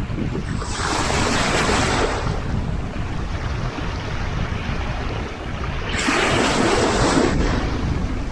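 Sea waves washing onto the shore, two surges of surf hiss about five seconds apart, over a steady low rumble of wind on the microphone.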